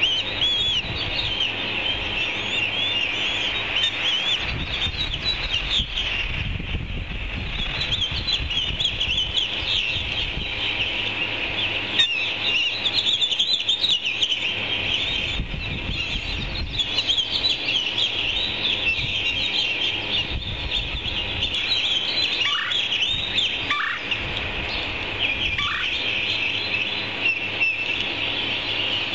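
Raptor nestlings chirping rapidly and without pause in high-pitched begging calls while an adult tears at prey. A few lower, falling calls come near the end, over a low rumble.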